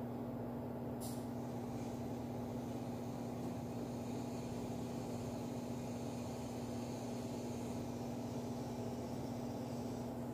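Steady low machine hum with an even hiss, unchanging throughout, and one faint click about a second in.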